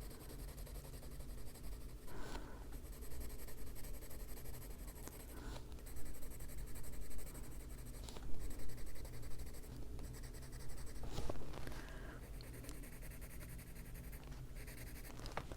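Prismacolor colored pencil scratching across paper as an area is shaded in, in continuous strokes with a few louder ones scattered through.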